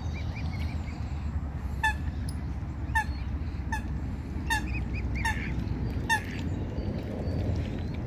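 A water bird gives six short, sharp calls, roughly one every 0.8 s. Faint high peeps from its chicks come between the calls, over a steady low rumble.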